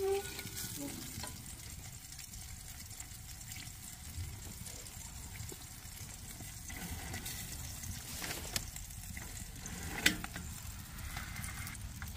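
Hot juices sizzling in the roasting tray of a whole chicken just out of a wood-stove oven, a steady soft hiss. Scrapes and a sharp metallic clack near the end as the tray is slid out of the oven.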